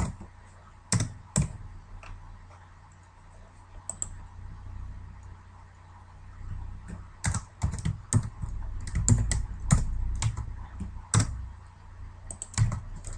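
Typing on a computer keyboard: a couple of keystrokes about a second in, then a quick run of keys from about seven to eleven seconds, over a steady low hum.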